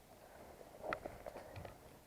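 A few faint, short clicks and knocks, a cluster about a second in and a couple more shortly after, over quiet background.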